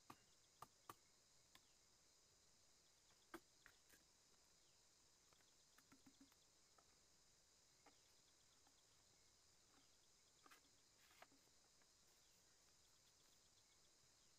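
Near silence: a faint steady high insect chirring throughout, with scattered faint clicks and taps from bamboo pieces being handled.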